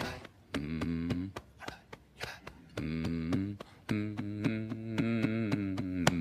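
A man humming a low, rhythmic chant in short phrases while thumping his chest with his fist, about four thumps a second, with one louder thump near the end.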